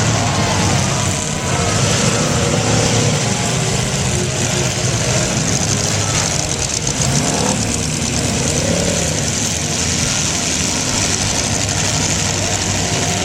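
Demolition derby cars' engines running together in a loud, steady din, with a few short rises in pitch.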